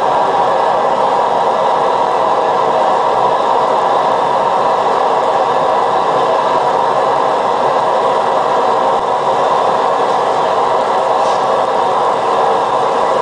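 ACK Mini Turbo wok burner running: a loud, steady rushing noise that does not change.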